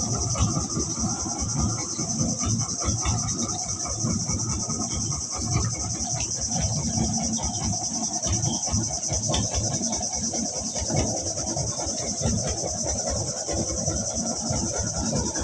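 Steady high-pitched insect chorus, with an uneven low rumble underneath.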